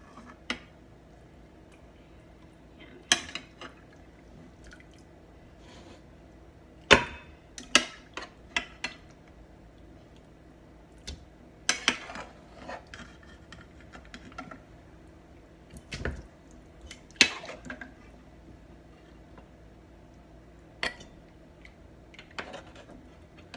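Metal ladle clinking and scraping against a pressure cooker pot, with broth dripping and splashing, as fat is skimmed off beef bone broth. The clinks come irregularly, the loudest about seven and seventeen seconds in.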